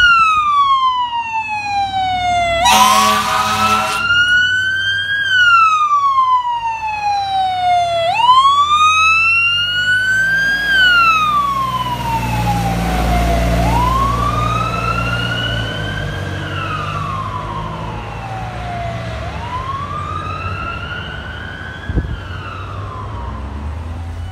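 Fire tanker truck's siren wailing in slow rising and falling sweeps, with a horn blast about three seconds in. The truck's diesel engine rumbles loudest as it passes about halfway through, and the siren fades toward the end.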